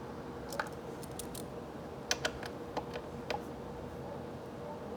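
Light, irregular clicks and taps of a hand tool on small bolts and metal parts, about ten of them, over a faint steady hum.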